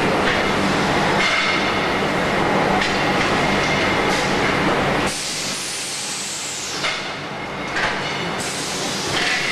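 Wheel rim roll forming plant machinery running with a steady hum and clatter. About halfway through, the low hum drops away, leaving a high hiss of pneumatic air with a couple of sharp clicks.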